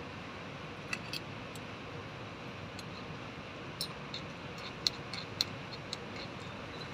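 Small metal spoon clinking against a miniature cooking pot while stirring: a few scattered light taps, then a quick run of clicks in the second half.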